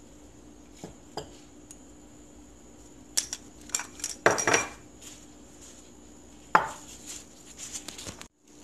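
Small ceramic dishes and a hand-held mesh strainer clinking and knocking as they are handled and set down on a wooden cutting board: a few light clicks at first, then a run of louder clatters about three to five seconds in, another sharp knock and smaller clinks later, cutting off suddenly near the end.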